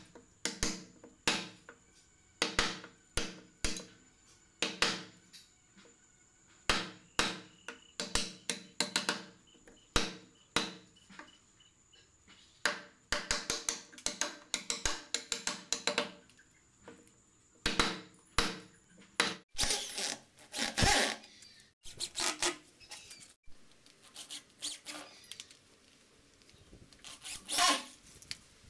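Wood chisel being struck into a wooden door frame to cut a hinge mortise: sharp knocks in quick clusters, with a few longer scraping strokes in the second half as the recess is pared out.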